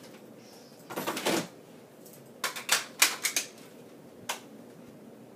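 Sharp plastic clicks and clatter of a Nerf Elite dart blaster being worked by hand while it is stuck: a short group about a second in, a quicker run of clicks a little later, and one last click near the end.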